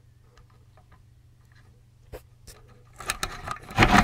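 Handling noises over a faint steady hum: two light clicks about two seconds in, then a flurry of clicks and rustling near the end, loudest just before it ends.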